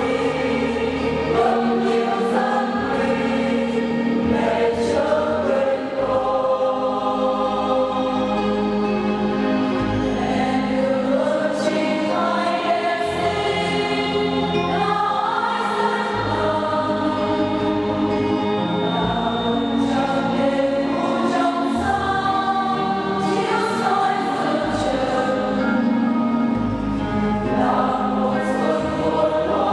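Church choir singing a hymn with instrumental accompaniment, over a low bass line that changes every couple of seconds.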